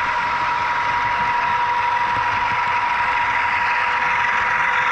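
Sound-equipped HO scale model diesel locomotive, its DCC sound decoder playing a diesel engine running through the model's small speaker: steady, with a constant high-pitched tone.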